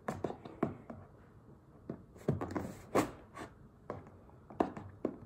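Scissors cutting along the edge of a cardboard product box: a string of short, uneven snips and clicks, about a dozen, with quiet pauses between them.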